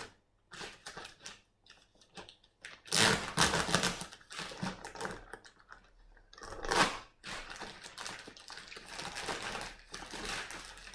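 Cardboard parcel packaging being opened and handled: irregular clicks, scrapes and rustling, with louder bursts of rustling about three seconds in and again near seven seconds.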